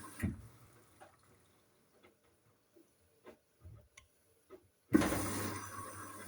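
Hoover washing machine filling with water in bursts: the inflow stops with a thump, water drips and ticks in the drum for a few seconds, then the water comes back on suddenly with a rush and a low hum about five seconds in.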